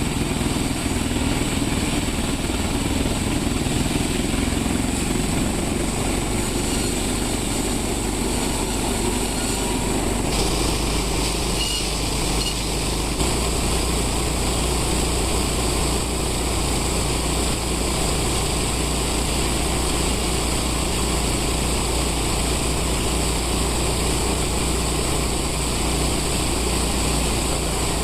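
Sawmill machinery running with a steady engine-like drone. The sound changes abruptly about ten seconds in, to a deeper hum.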